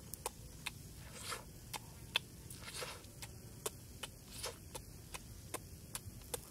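Close-up mouth sounds of a person eating food off a stick: sharp wet smacks and clicks of chewing and lips, about one or two a second, with a few short breathy puffs as he blows on the food.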